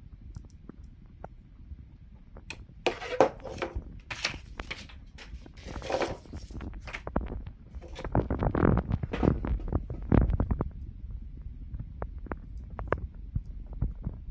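Handling sounds: rustling and light knocks in several bursts, loudest about eight to ten seconds in, over a steady low rumble, as a paper sign and a stick pointer are moved about on a desk.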